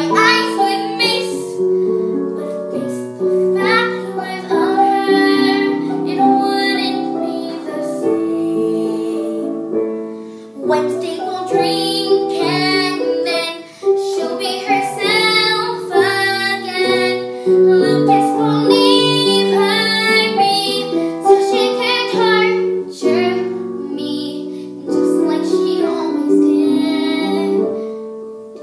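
A boy singing a musical-theatre audition song solo, with piano accompaniment under his voice.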